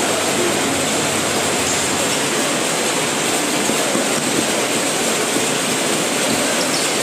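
Steady din of spectators and players at a futsal match, a dense even wash of noise with faint distant voices in it.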